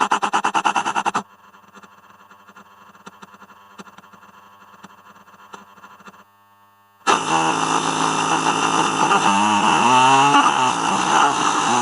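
Distorted, electronically processed creature sound effects. A rapid pulsing rattle of about ten pulses a second stops about a second in, followed by a quieter crackling texture with scattered clicks. After a short pause near six seconds, a loud, dense, rough sound with a wavering pitch starts about seven seconds in.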